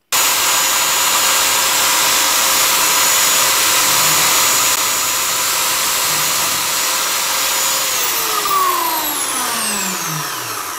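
Homemade disc sander driven by an old corded electric drill: the motor starts suddenly and runs at a steady whine while a piece of wood is sanded against the abrasive disc. About eight seconds in it is switched off and winds down, its pitch falling steadily.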